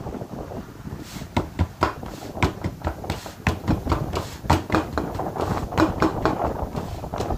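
Bhakri dough being patted flat by hand on a floured steel plate: a steady run of slaps and taps, about three a second, starting about a second in.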